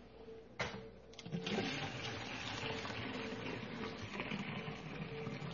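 Homemade liquid laundry soap poured from a plastic mixing bowl through a funnel into a plastic laundry jug, a steady stream of liquid. A single knock about half a second in as the bowl is handled.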